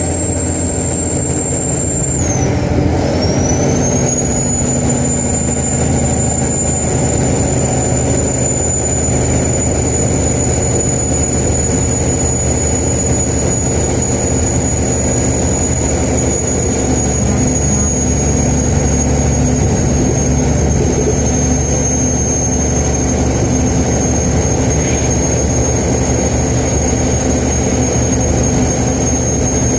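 2001 Kenworth's mechanical 575 hp single-turbo Caterpillar diesel running steadily under a high, loud turbocharger whistle. About two seconds in, the whistle drops briefly in pitch and climbs back as the turbo spools down and up again.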